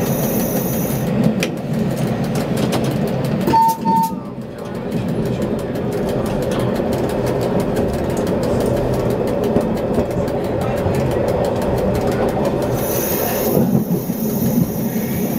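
Electric tram running along street track, heard from the driver's cab as a steady rumble of wheels and running gear. A short two-part electronic beep sounds about four seconds in, and a faint high whine comes in near the end.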